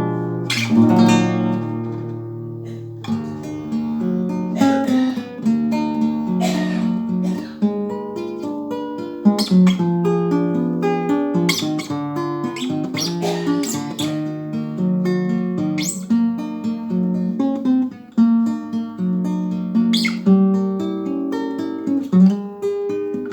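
Acoustic guitar playing a tune of plucked notes, with strummed chords every couple of seconds.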